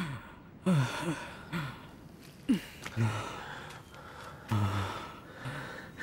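A man sobbing and gasping in anguish: a string of short moans that fall in pitch, between ragged breaths. It is the weeping of remorse.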